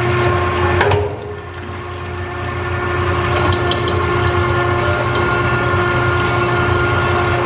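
Bar Maid motorized brush bottle washer running, a steady mechanical hum with a held whine. It dips about a second in, then grows louder and stays level.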